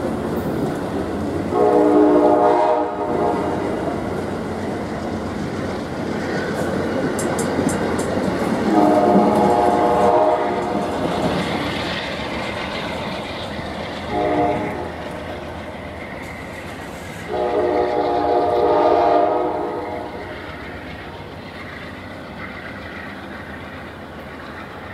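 Departing passenger train's horn sounding long, long, short, long, the standard signal for a grade crossing, over the rumble and clatter of the cars rolling past. The rumble fades after the last blast.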